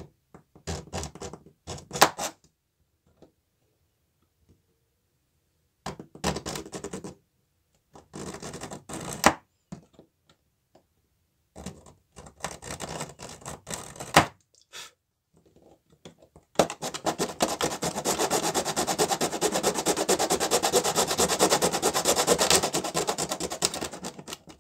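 Small hand saw cutting through a 00 gauge model railway rail held against a metal guide: several short bursts of sawing strokes, then about eight seconds of fast, continuous sawing from about two-thirds in.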